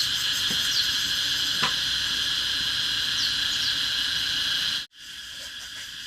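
Steady high-pitched chorus of chirring insects, with a few light taps. The chorus cuts off abruptly a little before the end, then resumes more quietly.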